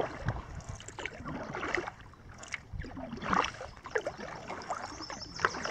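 Kayak paddle strokes: the paddle blades dipping and pulling through calm water, making a run of splashing swishes about every second, with water dripping off the blades.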